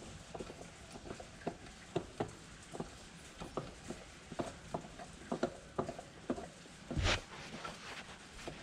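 Irregular light clicks and knocks, a few a second, with one louder scraping rustle about seven seconds in.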